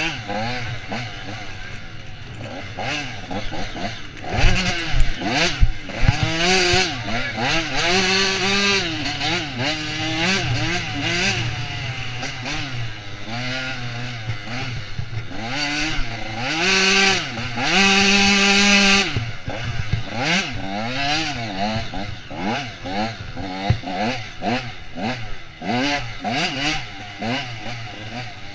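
Off-road dirt bike engine under hard riding, its pitch climbing and dropping again and again as the throttle is worked through the gears. It holds high revs for a few seconds about two-thirds of the way in.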